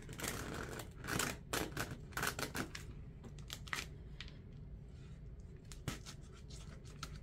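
Quiet scattered clicks and small rustles of a low-temp hot glue gun being worked, its trigger clicking as glue is laid in thin lines on a foam sheet, with hands handling the sheet. The clicks come thickest in the first few seconds and thin out after.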